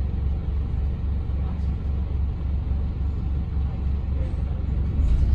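Volvo B5TL double-decker bus's diesel engine and drivetrain rumbling steadily, heard from inside the lower-deck cabin, growing louder near the end.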